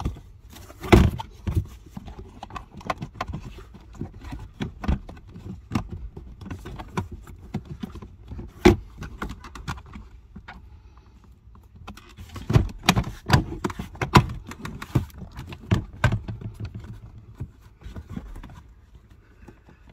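Irregular clicks, knocks and plastic rattles as the BMW F10's lower dash trim panel on the passenger side is handled and pulled down, its retaining clips letting go. A cluster of louder knocks comes past the middle.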